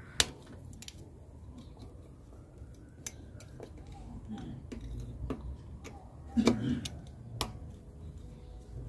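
A few sharp clicks and light metal taps of a folding Torx key being fitted to and turned on the Torx T25 screws of an idle air control valve.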